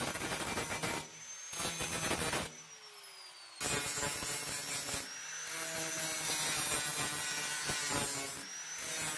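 Angle grinder with a metal cutting disc cutting into the steel floorpan of a Mazda Miata, throwing sparks. About three seconds in, the motor's whine falls as the disc spins down. Then the grinder starts again abruptly and cuts steadily.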